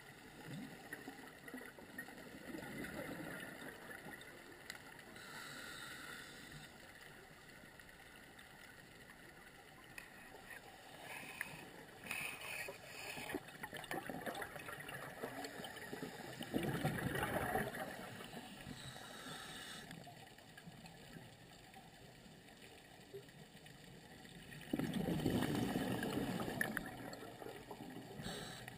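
Scuba divers' exhaled air bubbling out of their regulators, heard muffled underwater through a camera housing: a low steady wash broken by gurgling rushes of bubbles a few times, the loudest about two-thirds of the way through and again near the end.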